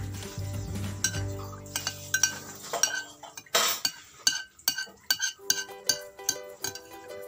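A spoon clinking and scraping against a clear food container while someone eats from it: quick, irregular clinks that come thick from about two seconds in, over background music.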